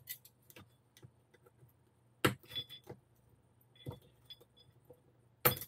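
Pliers and small metal RC-car parts clinking and clicking against each other and the bench, a scattering of light clicks with two sharper ones, about two seconds in and near the end.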